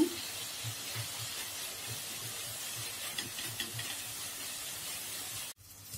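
Tomato-and-spice masala paste frying in mustard oil in a kadhai, giving a steady sizzling hiss that drops off abruptly near the end.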